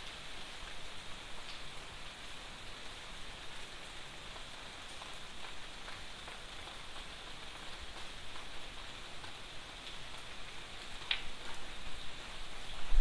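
Steady rain falling on garden foliage and paving: an even hiss, with a few single drops ticking out more sharply, one louder tick about eleven seconds in.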